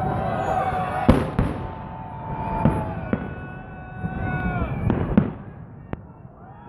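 Fireworks shells bursting in a salute display: a series of sharp bangs, about seven, at uneven intervals.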